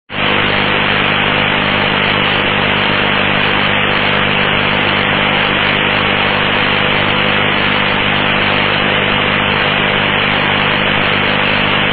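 Steady air-band radio static: an even hiss with a low electrical hum beneath it, switching on abruptly and holding at one level.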